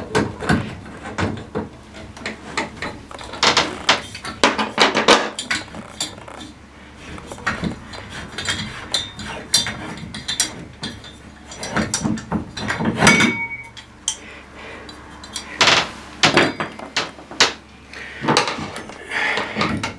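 Chrome tub spout being worked loose and pulled off its copper stub pipe by hand: a run of irregular metallic clicks, knocks and scrapes, with a brief squeak about two-thirds of the way through.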